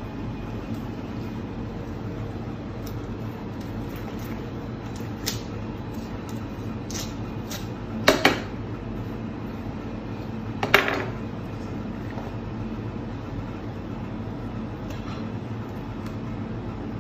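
Steady low hum of kitchen machinery, with a few sharp knocks of a knife and hands against the worktop while a large whole fish is cut open: a close double knock about eight seconds in and another near eleven seconds.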